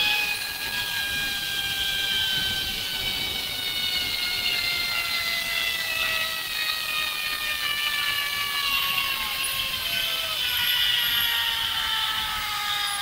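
Zipline trolley's pulley wheels running along the steel cable: a continuous high whirring whine that slowly falls in pitch, over wind noise on the microphone.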